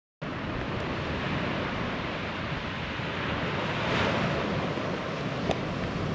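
Sea surf washing ashore with wind, a steady rushing that swells briefly about four seconds in.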